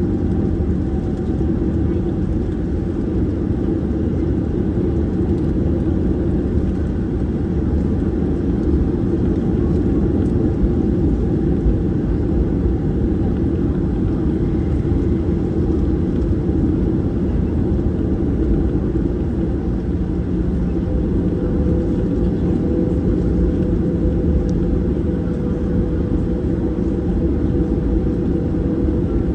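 Steady engine rumble of a Boeing 737-800's CFM56 turbofans heard inside the cabin, with a steady hum joining about two-thirds of the way through.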